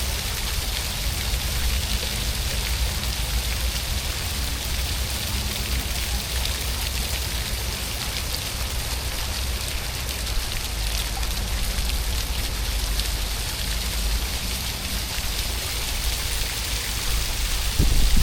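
Steady rain falling, a continuous hiss with fine drop ticks, over a constant low rumble.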